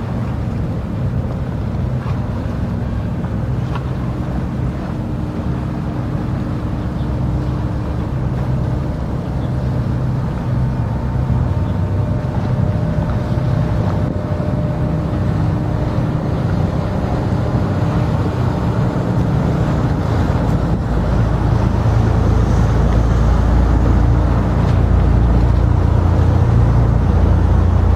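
Low, steady ship engine drone with wind rumbling on the microphone, the rumble growing louder over the last third.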